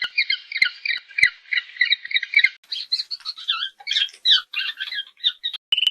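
Rapid, high-pitched animal squawks, about six a second at first, then more varied. A steady high tone starts near the end.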